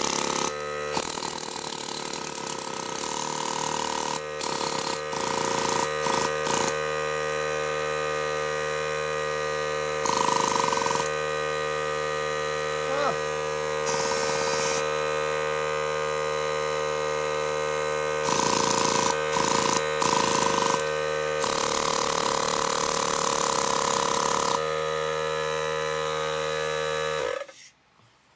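Small Mastercraft electric air compressor running with a steady hum while an air chisel is triggered in several bursts of rushing air lasting one to three seconds. The chisel does not hammer, which the owner puts down to the compressor probably being too small to drive it. The compressor hum stops abruptly near the end.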